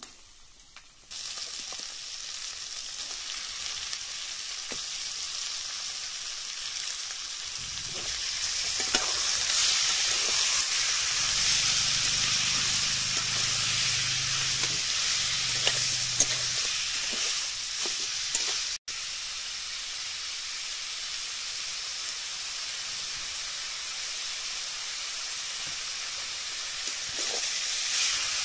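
Raw chicken pieces frying in hot oil in a steel kadai, sizzling steadily, with a long metal spatula scraping and knocking against the pan as they are stirred. The sizzle starts suddenly about a second in, as the chicken goes into the oil.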